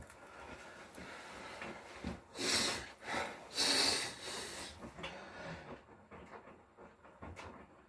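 Hotpoint Core 8 kg inverter-motor washing machine running a wash, with two swishing rushes of water a little over a second apart, the second one longer.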